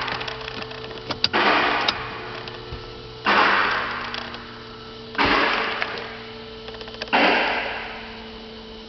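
Car engine running with a steady hum, while four sudden swells of rushing noise, each fading over a second or so, come about every two seconds, with a few sharp clicks between them.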